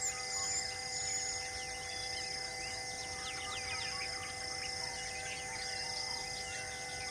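Forest ambience: many short bird chirps, and an insect's high pulsing call repeating about once a second, over a steady drone of tones.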